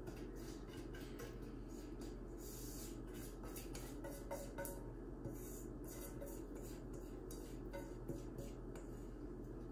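Faint clinks and scrapes of a stainless steel mixing bowl as thick brown-sugar syrup is poured out of it into a round metal cake pan, a few clinks louder about four and eight seconds in, over a steady low hum.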